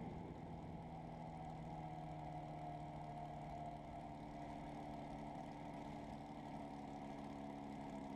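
Overhauled Rotax 503 two-cylinder two-stroke ultralight engine running steadily at low throttle during the landing rollout on grass, with an even pitched hum.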